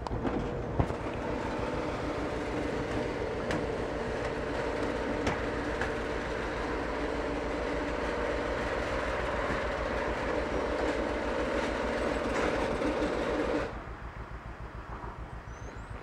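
Genie screw-drive garage door opener running as the sectional door rises, a steady motor hum with scattered clicks from the door; it stops abruptly near the end as the door reaches fully open.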